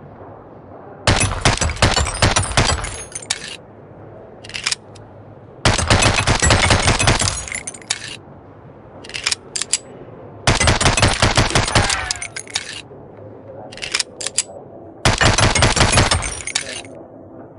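M1911 pistol sound effect: four rapid strings of gunshots, each lasting about two seconds, with short bursts of metallic clicking in the quieter gaps between the strings.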